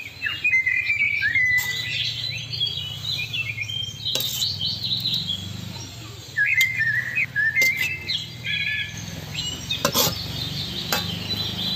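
Small birds chirping and twittering, with sharp clinks of a steel spoon against a glass bowl and a metal wok as curry is served out, and a low steady hum underneath.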